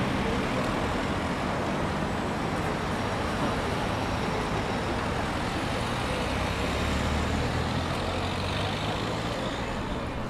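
City street traffic: motor vehicles running past in a steady wash of road noise, with a low engine sound that grows strongest about two-thirds of the way through.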